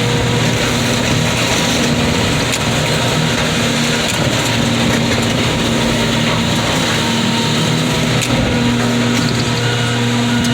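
Car crusher running steadily through a crush cycle: its engine and hydraulics hum evenly, with a few short cracks and knocks from the car being crushed.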